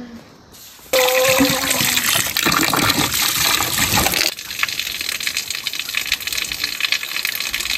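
Water gushing from an outdoor tap into a metal pot as rice is rinsed in it by hand, starting abruptly about a second in. From about four seconds in the rush becomes steadier and thinner.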